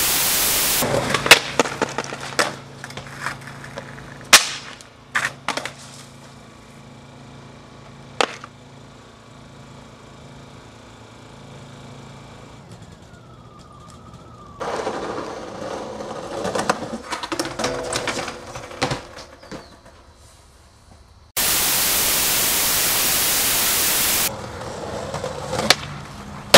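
TV static hiss in a short burst at the start and again for about three seconds near the end, with scattered sharp cracks and clacks of skateboard wheels and boards on concrete in between.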